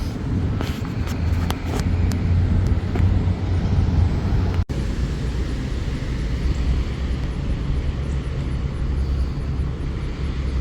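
Wind buffeting the microphone: a steady low rumble with a few faint knocks in the first few seconds.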